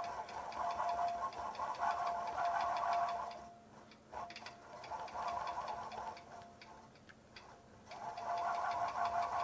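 Longarm quilting machine free-motion stitching, a fast run of fine needle ticks over a steady hum. It runs in spells, nearly stopping about three and a half seconds in and again for a second or so near the end before picking up.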